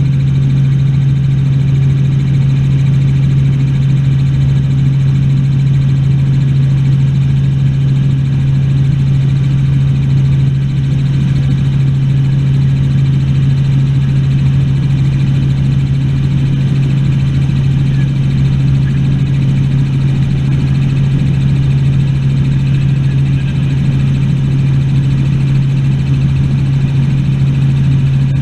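Helicopter in steady flight: a loud, even drone of engine and rotor with a strong low hum held at one pitch.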